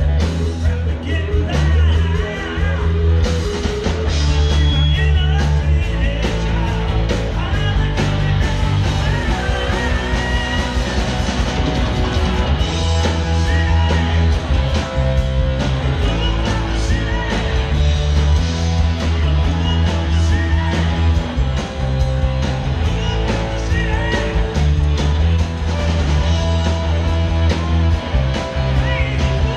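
Live rock band playing through PA speakers: guitars over a repeating bass line and a steady drum beat.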